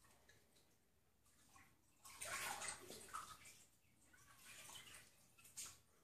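Faint, wet suckling and shuffling of newborn kittens and fennec fox kits nursing on a Bengal cat, in irregular bursts, loudest about two seconds in.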